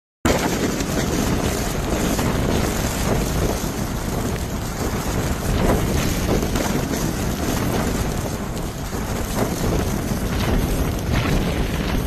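Wind blowing in a snowstorm, buffeting the microphone with a steady rushing noise and small gusts. It starts abruptly just after the beginning.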